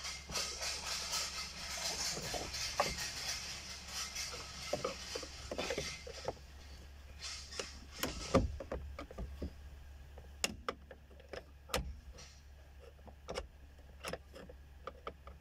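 Scattered clicks, taps and small rattles of hands and a tool working at the back of an Audi Q7's steering wheel to release the horn pad from its clips, over a steady low hum. A hiss in the first half stops with a knock about eight seconds in.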